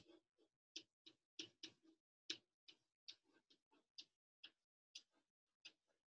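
Faint chalk tapping and scratching on a chalkboard as letters are written by hand: short, irregular ticks, about three a second.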